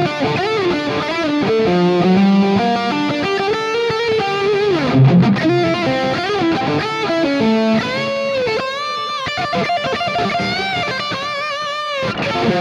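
Harley Benton SC550 Deluxe electric guitar played through an amplifier: a flowing single-note lead line over the neck, with several notes bent up and let back down.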